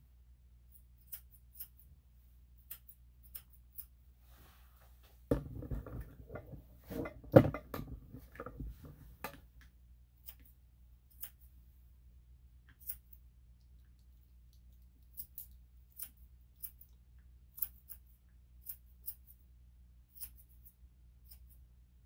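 Grooming scissors cutting a long-haired Chihuahua's coat in short, irregular snips. About five seconds in, a louder stretch of rustling and knocks lasts about four seconds.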